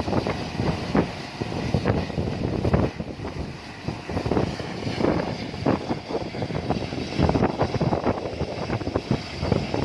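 Helicopter running, with gusty wind buffeting the microphone.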